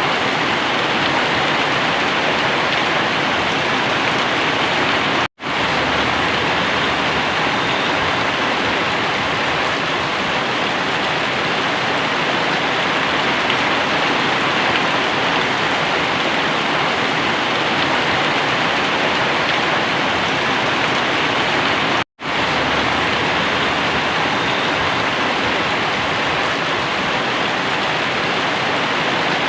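Very heavy rain pouring down as a steady, dense hiss. The sound cuts out for an instant twice, about 5 seconds in and again about 22 seconds in.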